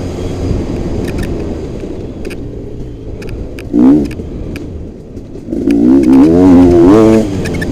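Motocross bike engine on the move: running low for the first few seconds, a short sharp rev about four seconds in, then revving hard up and down for about two seconds near the end, with scattered clicks throughout.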